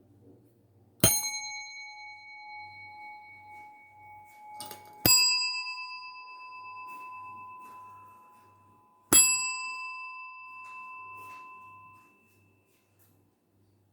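A small metal bell struck three times, about four seconds apart, each strike ringing out and slowly fading; the first ring is a little lower in pitch than the next two.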